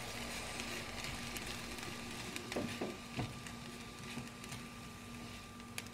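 Onion, bell pepper and minced garlic frying in olive oil in a pan, a soft steady sizzle with a few light knocks of the spatula against the pan about halfway through.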